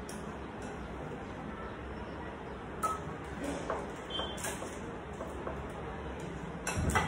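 A few light clinks of kitchen dishes and utensils being handled on the counter, over steady room noise, with a louder knock near the end.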